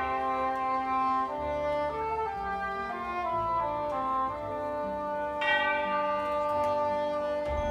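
Military wind band and orchestra playing a symphonic passage: held woodwind and brass chords that move to new notes every second or so, with a fuller, brighter chord coming in about five and a half seconds in.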